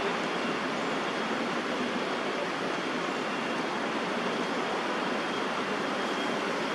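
Steady background roar of distant city traffic, an even wash with no distinct events.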